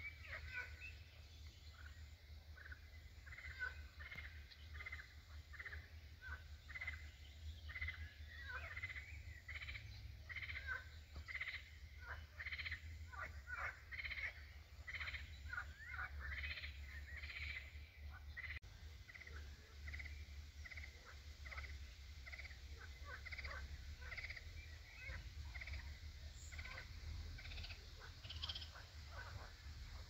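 Frogs calling from the lake in a dense chorus of short, overlapping croaks, over a low steady rumble.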